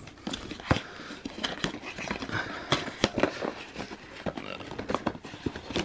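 Thin cardboard product box being torn open along its perforated tear strip: irregular crackling rips and small clicks of paperboard, with the rustle of the box being handled.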